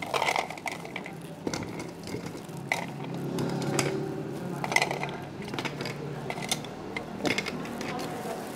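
Ice cubes being picked out of a stainless steel bowl with metal tongs and dropped into a glass cup: scattered clinks and clatters of ice, tongs and metal, over a steady low hum.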